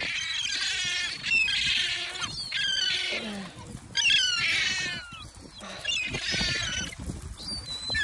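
A flock of gulls squabbling over food on the ground, calling over one another: shrill, falling squawks that come in overlapping bursts about once a second.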